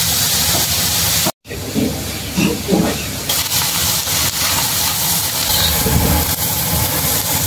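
Vegetables sizzling in a hot wok as they are stir-fried. The sizzle cuts out for an instant about a second and a half in, then carries on.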